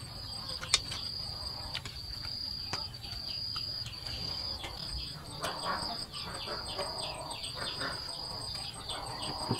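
Insects trilling steadily at one high pitch, broken by brief gaps. From about four seconds in, a run of quick falling chirps joins it, and there are scattered sharp clicks.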